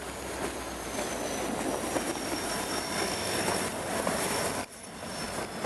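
Diesel freight locomotives and cars rolling past close by: engine rumble and steel wheels rattling on the rail, with a thin high wheel squeal slowly falling in pitch. The sound drops out briefly about four and a half seconds in.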